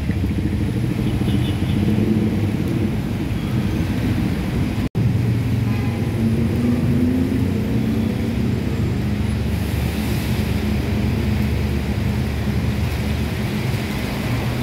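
Road traffic on a rain-wet junction: buses, cars and motorcycles passing in a steady rumble of engines and tyres on wet tarmac, with the sound cutting out for an instant about five seconds in.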